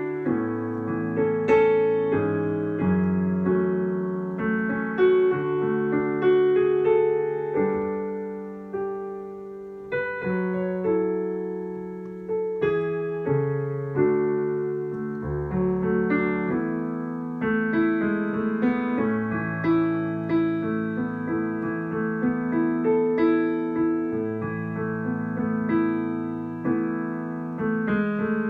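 Solo piano played slowly and gently, struck chords ringing over one another; one phrase tapers off about eight seconds in before the next begins.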